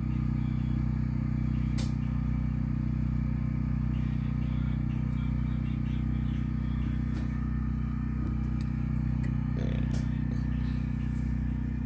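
Portable generator engine running steadily under load, a constant low hum.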